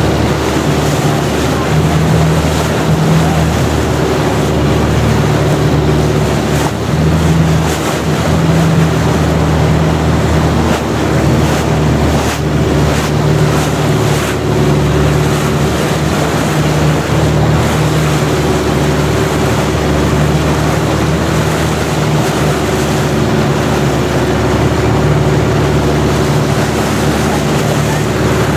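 Long-tail boat's engine running steadily at cruising speed, loud and close as heard from on board, with water rushing past the hull.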